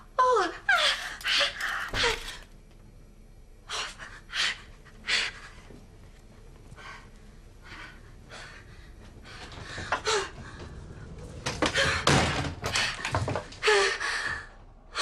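A woman's frightened gasps and sharp breaths in irregular bursts, a few of them voiced, with a lull in the middle and the loudest cluster near the end.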